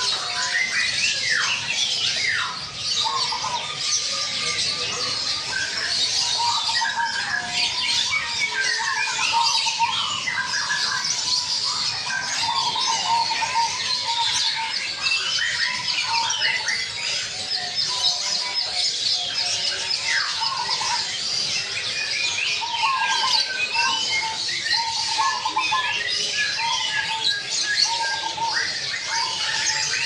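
Caged zebra doves (perkutut) cooing in repeated clusters of short notes, over a dense chorus of chirping and twittering from many other caged birds.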